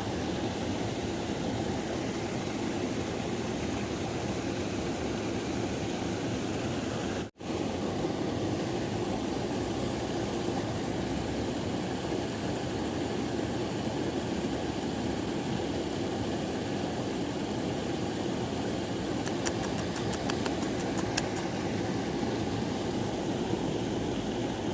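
Steady rushing of river water, which breaks off for an instant about seven seconds in.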